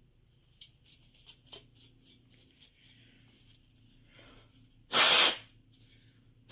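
Faint clicks of a CPU heatsink being handled, then two short, loud puffs of breath blown through its fins to clear dust, one about five seconds in and one at the very end.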